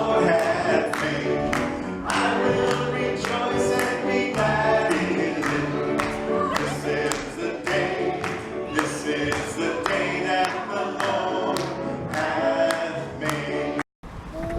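Gospel-style music: a choir singing over a steady beat, cut off abruptly near the end.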